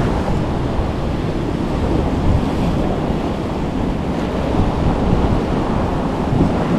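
Wind buffeting the microphone over the steady wash of sea waves: a loud, even rumbling noise.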